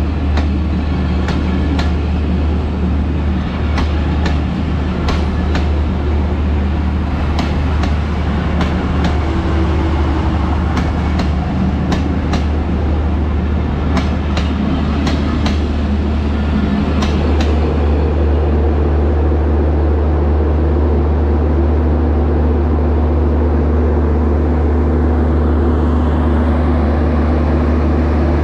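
Broad-gauge express train coaches rolling past close by, with a steady rumble and wheels clacking over rail joints, mostly in quick pairs. The clacks thin out after about 17 seconds, leaving a steadier, humming run.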